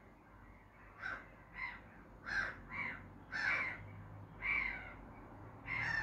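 Pied avocets calling: a series of about seven short, sharp calls at uneven intervals, starting about a second in, after a few fainter calls.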